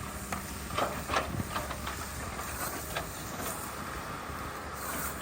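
Steel hand trowels swishing and scraping across the surface of a wet concrete slab, with a few sharper scrapes about a second in and again near the middle.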